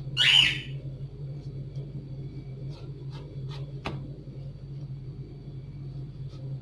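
A pet bird gives one loud squawk just after the start. A few sharp clicks of a knife on a cutting board follow as a potato is sliced, over a steady low hum.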